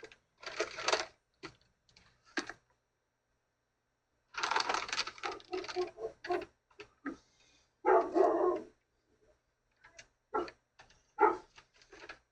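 Dog barking in short, irregular bursts, heard through a doorbell camera's microphone.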